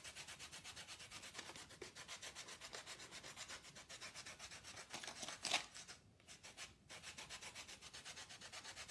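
A lemon grated on a fine rasp grater to take off the zest: quick, even scraping strokes, about six a second, with a short pause about six seconds in.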